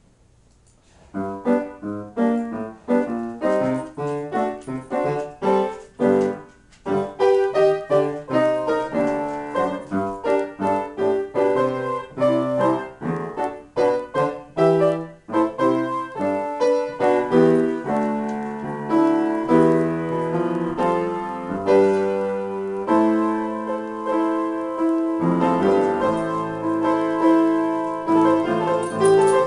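Solo upright piano being played freely, improvised: notes start about a second in, break off briefly at about six and a half seconds, then run on in continuous chords and melody.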